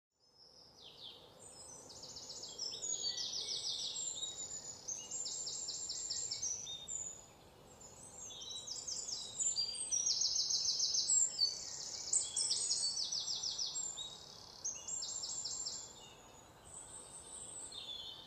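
Countryside ambience: many overlapping high, rapid chirping trills coming and going in spells of about a second, over a faint steady hiss. It fades in from silence at the start.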